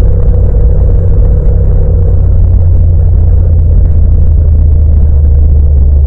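Yamaha MT-07's 689 cc parallel-twin engine running loud and steady in fourth gear as the bike slows, a deep low rumble with no wind noise.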